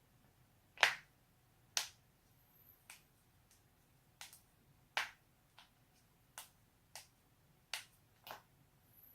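Joints cracking: about ten sharp pops at irregular intervals of roughly half a second to a second. The loudest two come in the first two seconds.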